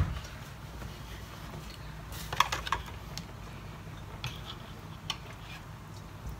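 Quiet kitchen background: a low steady hum with a few faint, light clicks and knocks scattered through the middle.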